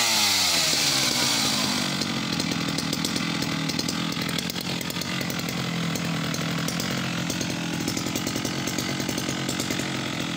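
Vintage Sachs-Dolmar 122 two-stroke chainsaw coming down from high revs to idle about two seconds in, then idling steadily.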